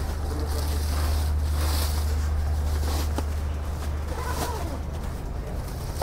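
Steady low wind rumble on the microphone, with crinkling and rustling of plastic wrap as a rolled-up car awning in its cover is handled.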